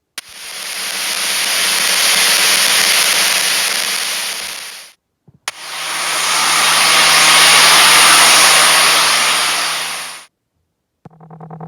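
Two simulated tinnitus sounds, each about five seconds of steady hissing noise with a bright high-pitched band on top, swelling in and then fading out. The second has a low hum beneath the hiss.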